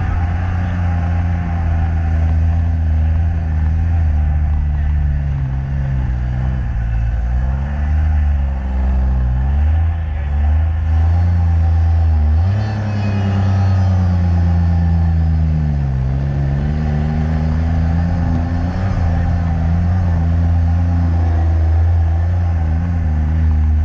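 Classic trials car's engine pulling hard up a steep, rutted dirt climb, its revs dipping and recovering several times, with a sudden rise about halfway through.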